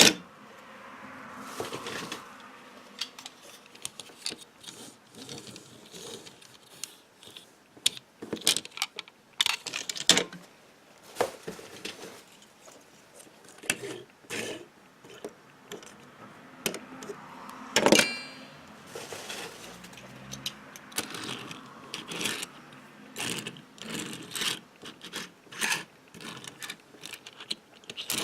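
Diecast toy cars and their packaging being handled: scattered small clicks and clinks over light rustling, with one sharper clink that rings briefly near the middle.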